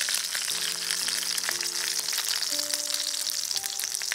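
Pork belly sizzling and crackling in its own rendered fat in a stainless-steel electric skillet at maximum heat: a dense hiss with many fine crackles and spits. Soft piano music plays underneath.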